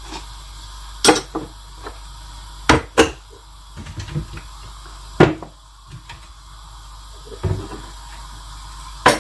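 Kitchen cupboard door and glass jars knocking as things are put away: about six separate knocks and clicks, spread out with quiet between them.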